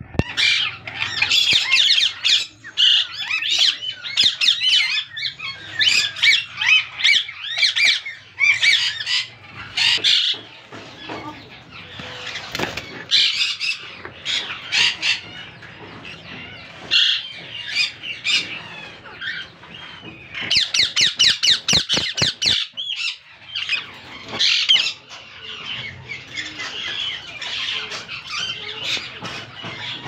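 Ringneck parakeets squawking again and again with harsh, high calls, including a fast run of calls about two-thirds of the way through.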